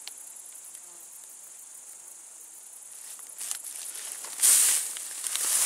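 Crickets chirping steadily and high-pitched. From about three seconds in come rustling swishes as someone pushes on foot through dry, waist-high wheat stalks, with the loudest swish about four and a half seconds in.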